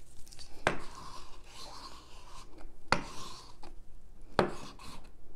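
Handheld paint roller bottle rubbing and scraping across a paper sheet as paint is rolled on, with three sharp knocks against the tabletop.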